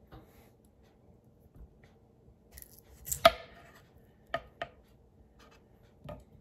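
Kitchen knife cutting through a whole papaya and knocking on the wooden cutting board: a few sharp knocks, the loudest about three seconds in, two close together a second later and one more near the end.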